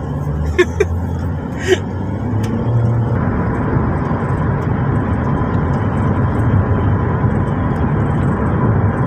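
Taxi cabin sound while driving: engine hum and tyre and road noise, broadening and growing a little louder about three seconds in as the car picks up speed. A few short clicks come in the first two seconds.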